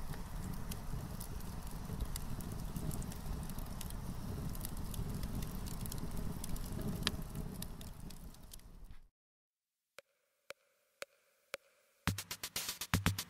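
Steady outdoor noise with a low rumble and scattered clicks and crackles, fading out about nine seconds in. After a few seconds of near silence with faint ticks, electronic music with a drum-machine beat starts near the end.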